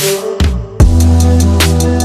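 Background electronic music: a rising noise sweep fades out, then a heavy bass line and drum beat drop in just under a second in.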